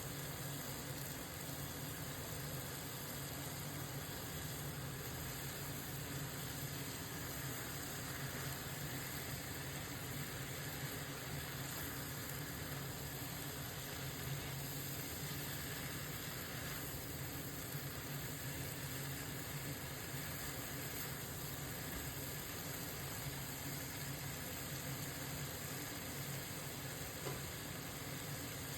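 Beef mince with mixed vegetables and sliced capsicum sizzling steadily in a frying pan.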